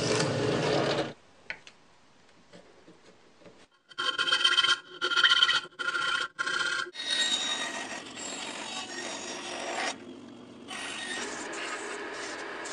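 A drill press bores into plywood until about a second in. After a short lull, a round file rasps in a hole in plywood, first in several separate strokes, then continuously. Near the end a bandsaw cuts a small piece of wood with a steady noise.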